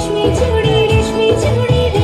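Bengali dance song with singing over a steady beat, played loud through stage PA loudspeakers.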